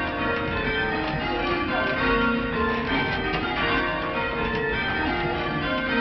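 Church bells being change-rung full circle, one struck after another in a steady stream with their rings overlapping, heard from the ringing chamber below the bells.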